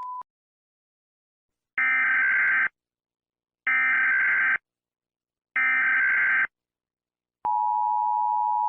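Emergency Alert System tones: three identical short bursts of SAME header data, each under a second long and about two seconds apart, followed near the end by the steady two-tone EAS attention signal. A steady beep cuts off just as it begins.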